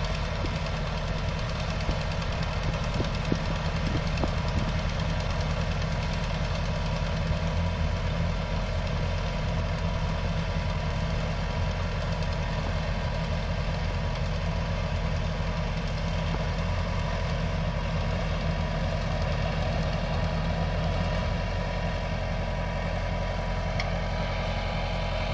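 Ford 500 tractor's engine idling steadily.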